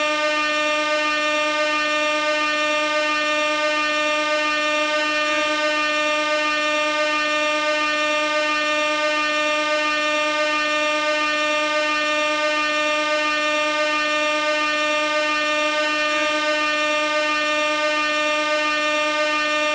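Gas-powered air horn sounding one long, unbroken tone at constant loudness.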